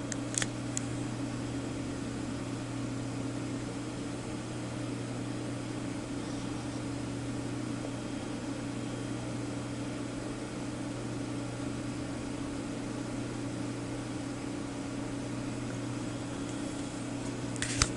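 Steady low hum and hiss from running electronics bench equipment, with a sharp click about half a second in and another just before the end.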